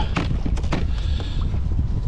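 Wind rumbling on the microphone, with several sharp taps and knocks, a cluster of them about half a second in.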